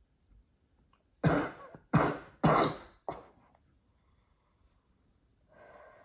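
A woman coughing hard: three sudden coughs in quick succession a little over a second in, then a smaller fourth, and near the end a long breathy exhale begins. A heavy smoker's cough, which is put down to smoking a pack of Marlboro Red a day for 14 years.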